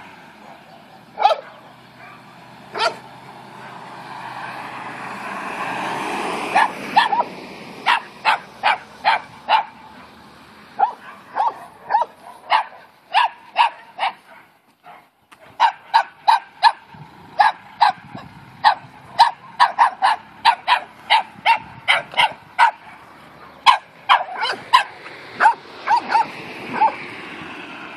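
Dogs barking at a steady clip, short sharp barks about two to three a second, with a brief pause about halfway through. Early on, a rushing noise swells up and cuts off, likely a vehicle going by on the road.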